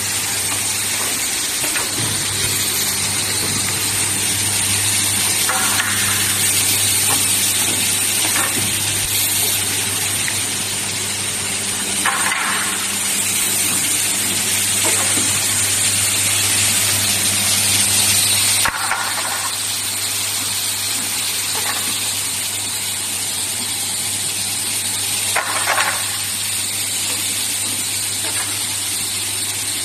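Automatic woodworking cutting, drilling and insert-fitting machine running: a steady motor hum under a broad hiss, with short bursts every few seconds from its pneumatic cylinders and tooling working.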